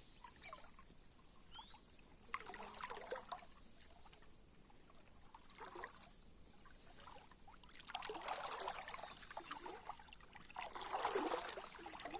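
Faint river water sloshing and trickling in irregular bursts, stirred by someone wading and working a jereré hand net; the longest stretches of sloshing come past the middle and near the end.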